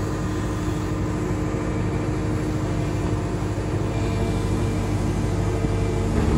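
Excavator diesel engine running steadily with an even drone.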